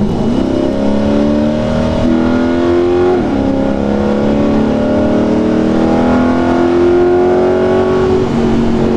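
2020 C8 Corvette's 6.2-litre V8, with long-tube headers, no catalytic converters and a Corsa performance exhaust, heard from inside the cabin at wide open throttle. The revs climb and drop sharply at upshifts about three seconds in and near the end. The active exhaust valves, closed at the start of the pull, open on their own at speed and RPM.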